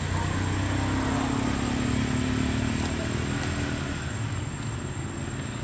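A motor vehicle engine running, a steady low hum that swells over the first few seconds and eases off after about four seconds.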